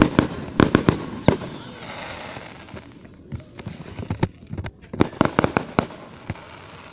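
Fireworks display going off: a rapid string of sharp bangs, then a fading crackle, and another cluster of bangs about five seconds in.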